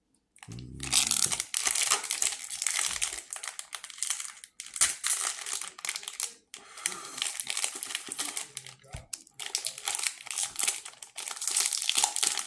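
Plastic shortbread cookie wrapper crinkling and tearing as it is pulled open by hand, in crackly bursts with a couple of short pauses.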